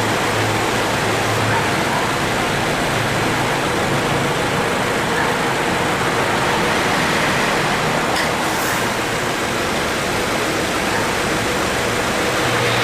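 2018 Subaru XV running with the air conditioning on: a steady rushing noise with a faint low hum that swells near the start and again at the very end. The AC compressor cycles on three to four times a minute and makes an abnormal noise as it engages, the sign of light compressor wear and weakening cooling.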